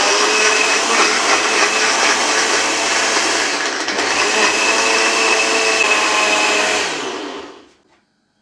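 Personal bullet-style blender running with its cup pressed onto the motor base, blending a creamy drink with a few ice cubes in it: a steady loud whir that stops about seven seconds in and winds down.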